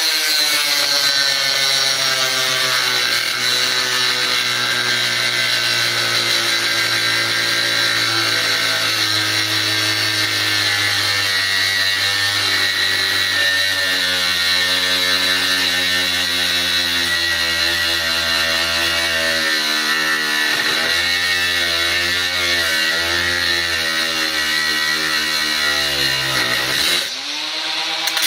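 Makita 18-volt cordless angle grinder with a thin cutting disc cutting under load, its high whine wavering in pitch as the disc bites. Near the end the motor speed drops sharply for a moment and picks up again.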